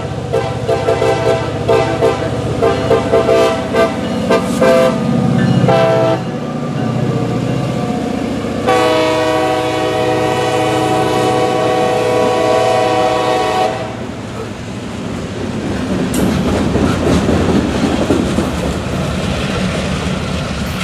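A CSX GP38-3 locomotive's Nathan K5LA five-chime air horn sounding a run of short, rapid blasts for about six seconds, then one long blast held for about five seconds. After that the diesel locomotive and its wheels on the rails are heard going by as a steady rumble.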